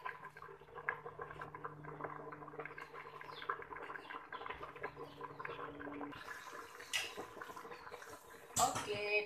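Fish and sour-eggplant soup bubbling at a boil in a large stainless steel stockpot, a run of small irregular pops over a faint steady hum. Near the end, a louder metal clatter with a ringing tone, as a metal ladle hits the pot.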